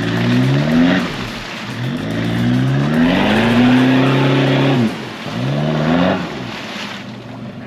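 Off-road four-wheel-drive's engine revving hard in three surges as it drives a muddy track, the middle surge climbing and held high for nearly two seconds before dropping away.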